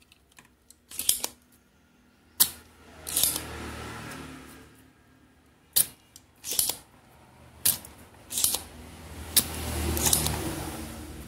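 Desoldering diodes from a circuit board with a soldering iron: a series of sharp clicks with short hissing bursts in between, as the solder and flux are heated.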